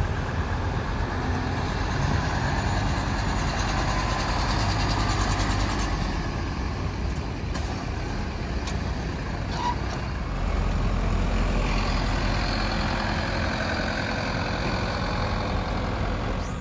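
Diesel engines of customised trucks running as the trucks drive slowly past one after another.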